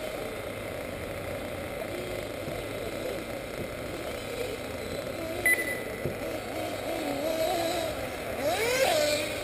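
Nitro engines of 1/8-scale RC buggies whining and revving around the track, their pitch rising and falling. One buggy passes close near the end with a sharp rising rev, and a brief sharp click with a short high beep comes a little past halfway.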